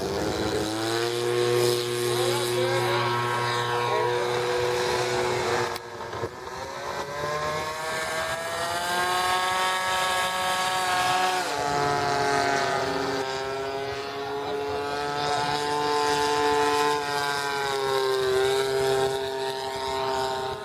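Radio-controlled model airplane motor running steadily, its pitch slowly rising and falling as the plane is throttled and flies around. The sound changes abruptly about six seconds in.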